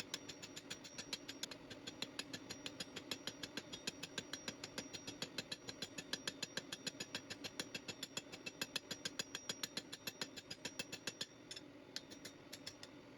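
Rapid, even hammer blows, several a second, of a curved cross peen hammer on hot thin-walled tube resting in a grooved bottom tool, forging the grooves. The blows stop near the end, with a few scattered strikes after, over a steady low hum.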